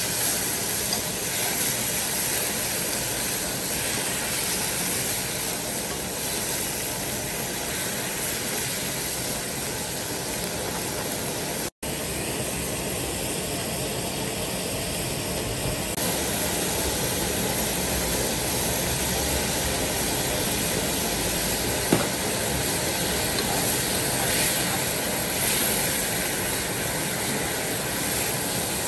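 Fish and broth bubbling in a wok over a gas burner, a steady hiss throughout with chopsticks stirring now and then. The sound drops out for an instant about twelve seconds in, and there is a single small click near twenty-two seconds.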